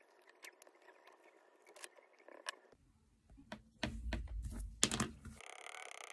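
Graphite pencil scratching and scribbling on paper, then knocks and clicks as art markers are picked up and handled, with one sharp click near the five-second mark, followed by a marker rubbing steadily across the paper.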